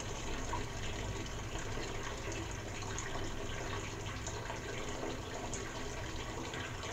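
Hot water gravity-feeding out of a silicone tube into a stainless steel brew kettle, a steady pouring splash, with a steady low hum from the circulating pump underneath.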